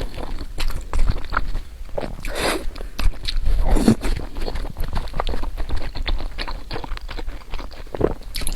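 Close-up eating sounds: a person chewing food with irregular wet mouth clicks and smacks.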